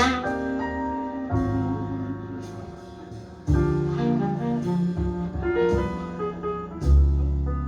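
Recorded slow jazz ballad played back through Spendor SP1 loudspeakers. Piano chords and deep double bass notes carry it, with a few sharp note attacks, one just at the start.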